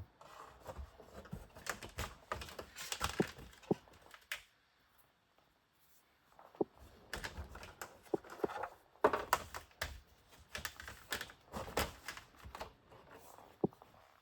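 Hands working heat-shrink tubing onto a wire: irregular rustling and small clicking clatter with a few brief squeaks, pausing for a moment partway through.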